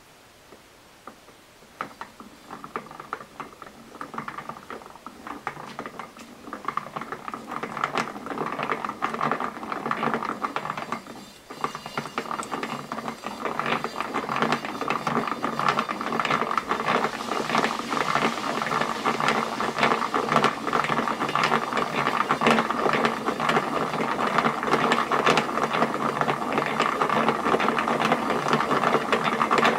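Hand-cranked homemade wooden yarn winder turning: its wooden gear teeth mesh in a rapid run of clicks as yarn is wound onto the spindle. It starts about two seconds in, breaks off briefly about a third of the way through, then runs on louder and steadier.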